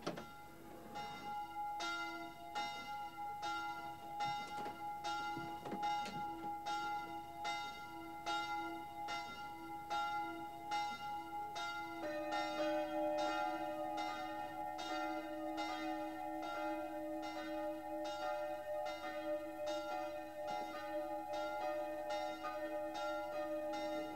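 Church bells ringing in steady, evenly spaced strokes, a little under two a second. About halfway through, a fuller, deeper peal takes over and carries on.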